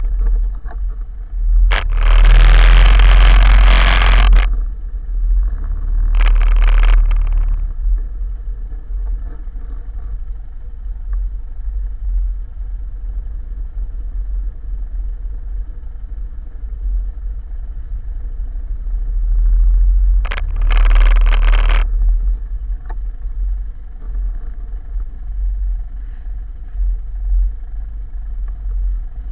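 Quad bike (ATV) engine running at low speed: a steady low rumble, broken three times by loud bursts of rushing noise, about two seconds in, about six seconds in and about twenty seconds in.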